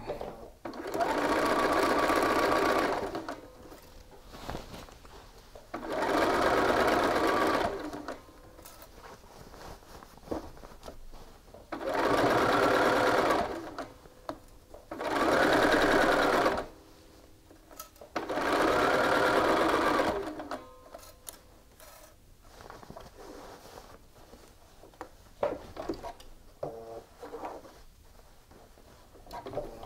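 Bernina sewing machine stitching in five short runs of two to three seconds each, stopping between runs while the fabric is straightened by hand, with small clicks and fabric rustles in the gaps.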